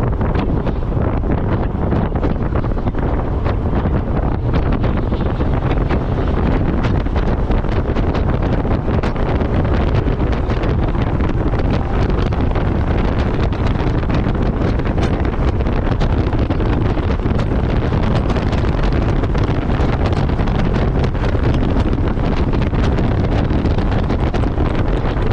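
Wind buffeting the microphone in an open-top 2019 Mazda Miata MX-5 at track speed, steady and loud, with the car's running noise underneath.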